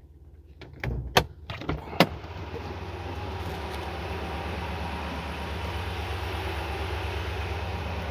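5.7-litre Hemi V8 idling with a low steady rumble just after a start-up. About a second in, a few sharp clicks and knocks come as the driver's door is opened, then a steady whooshing noise grows louder over the next few seconds.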